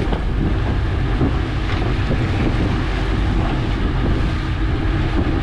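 Fishing boat's engine running steadily under way, with wind buffeting the microphone and the rush of wake water behind the stern.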